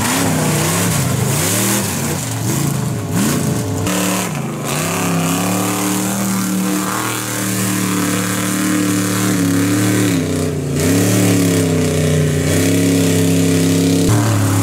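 Lifted mud trucks' engines revving hard under load as they churn through a mud pit. The pitch swings up and down several times in the first few seconds, then holds higher and steadier, with dips around ten and fourteen seconds in.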